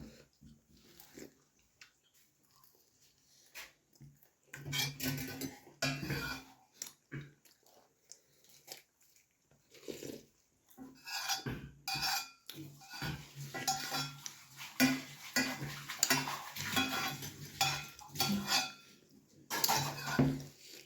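Close-miked eating of puri and vegetable curry: chewing and smacking mouth sounds with clinks of dishes, sparse at first and busier from about halfway on.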